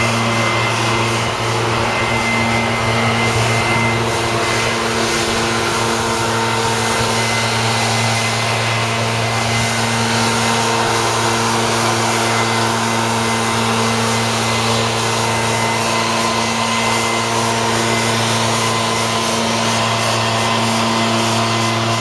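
Steady mechanical hum made of several even tones, under a constant rush of wind noise across the microphones.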